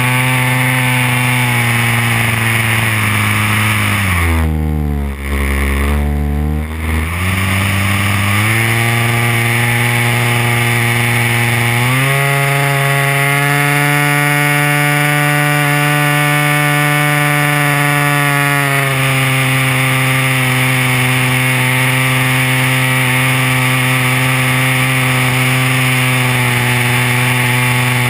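DLE 30cc single-cylinder two-stroke gasoline engine of a large RC model plane, heard close up from a camera on the airframe. About four seconds in the throttle is pulled back: the pitch drops low, then climbs back over the next few seconds. About twelve seconds in it is opened up to a higher, steady pitch, held for about seven seconds before easing back to cruise.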